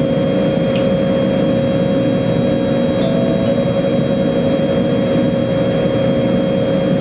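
Jetfoil's gas turbines and waterjet propulsion running steadily under way: a loud, even rush of noise with a constant droning tone.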